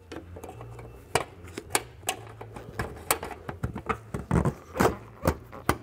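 Metal bumper retaining clip being worked into place between a Porsche 997 911's plastic front bumper cover and the body: an irregular run of sharp clicks and taps, busiest and loudest near the end.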